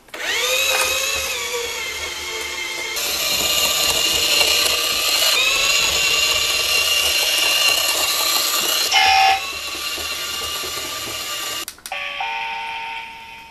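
Aoshima 1/32-scale radio-controlled bus driving: a high-pitched electric motor and gear whine that rises in pitch as it pulls away, then runs steadily with a couple of jumps in level. There is a short tone about nine seconds in, and the whine cuts off near the end, leaving a few fading tones.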